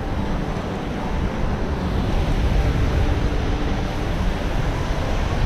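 Wind buffeting the camera microphone, a steady low rumble, over the wash of choppy sea water.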